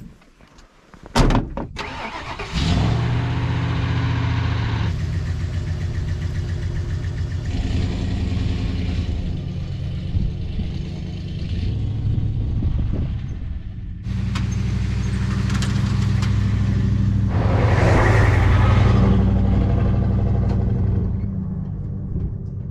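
A sharp thump about a second in, then a van's engine running steadily as the van is driven. The engine note drops briefly near the middle and swells louder a little later.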